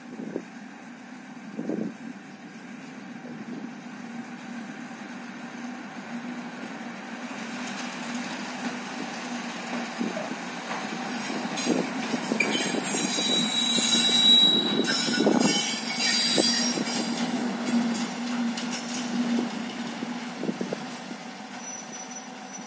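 Self-propelled rail work vehicle with a loader crane running along the track, its engine drone steady and growing louder as it comes closer. Around the middle, as it passes nearest, its wheels squeal high-pitched on the rails, with a few clicks from the wheels.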